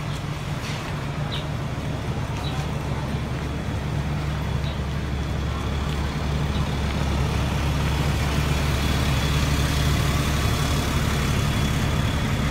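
A motor vehicle's engine running steadily with a low drone, growing somewhat louder in the second half.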